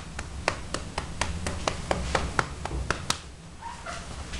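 Siamese cat mouthing at something right by the microphone: a quick, regular run of clicks, about four a second, that stops about three seconds in.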